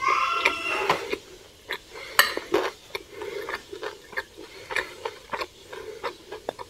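Metal fork and spoon clinking and scraping against a ceramic plate in many short, irregular clicks while rice and chicken are scooped up. A short, pitched voice-like sound carries over into the first second.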